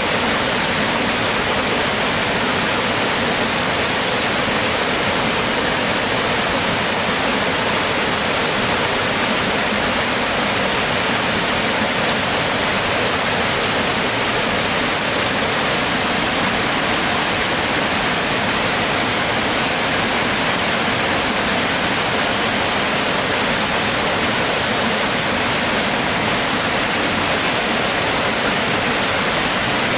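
Small waterfall on a rocky stream, water rushing steadily over the rocks.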